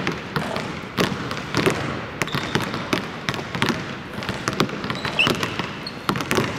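Basketballs bouncing on a hardwood court, irregular sharp thuds echoing around a large empty arena.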